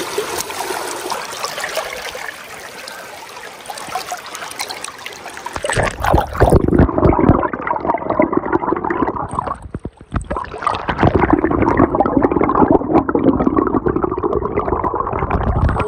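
Shallow creek water rushing and splashing around a landing net. About six seconds in the sound turns muffled and gurgling, heard from under the water, and stays that way, with a brief drop in level a few seconds later.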